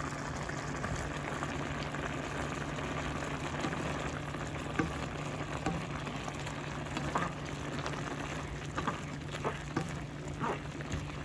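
Beef and green beans bubbling and sizzling in liquid in a nonstick pan. A steady low hum runs underneath, and scattered clicks come more often in the second half as a wooden spatula stirs.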